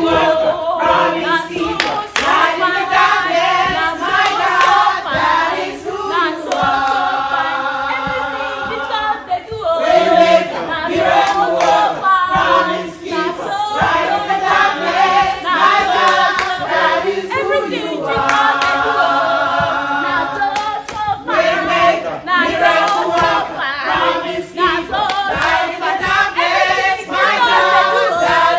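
Church choir of men and women singing an upbeat song together, with hand-clapping.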